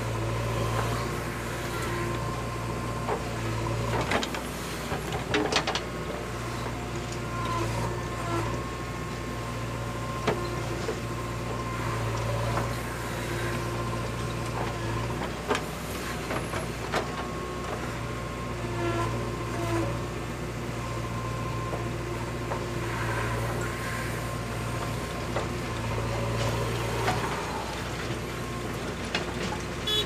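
JCB 3DX backhoe loader's diesel engine running under load while the backhoe digs soil and dumps it into a tractor trolley; the engine note swells and eases in stretches of a few seconds. Occasional sharp knocks from the bucket and falling clods.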